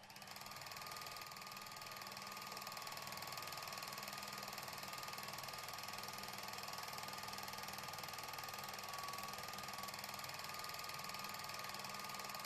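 A small mechanism running with a rapid, even mechanical clicking and a faint steady whine, unchanging throughout.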